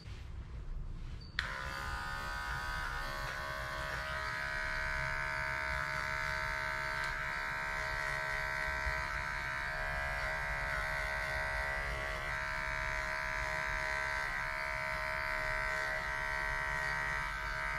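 Wahl electric pet clipper switching on about a second and a half in, then running with a steady buzz while trimming the fur on a dog's paw.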